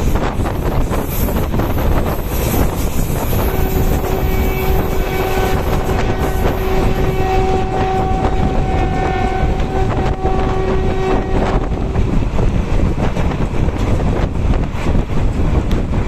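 Passenger train running at speed, heard from a coach window: a steady rush of wheel rumble and wind on the microphone. About three seconds in, a train horn sounds one long, steady blast lasting about eight seconds.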